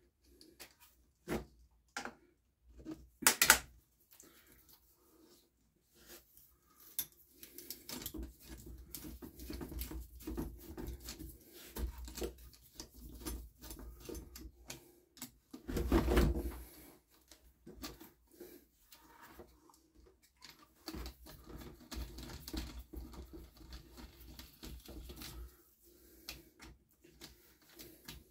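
Clicks, taps and light rattles of hand tools and small parts as components are fitted back onto a two-stroke petrol string trimmer, with a louder bump about halfway through.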